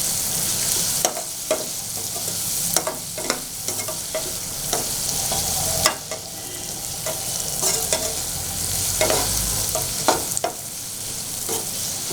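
Onion, tomato and garam masala frying in oil in a kadai, sizzling steadily, while a spoon stirs and scrapes against the pan with irregular clicks and knocks.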